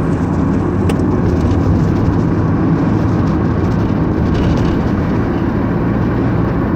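Car driving on a rough, potholed asphalt road: a steady low rumble of engine and tyres, heard from inside the car.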